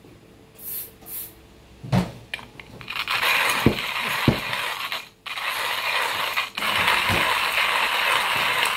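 Hand-cranked coffee mill grinding beans: a steady gritty crunching that starts about three seconds in, with a short break near the middle. A soft knock comes just before it, about two seconds in.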